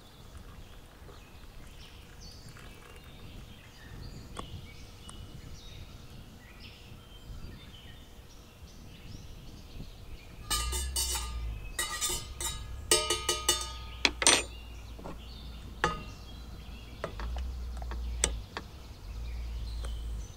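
A metal teaspoon stirring tea in a metal camping mug, clinking and ringing against its sides. The clinks come in a quick run of a few seconds about halfway through, then a few single clinks follow.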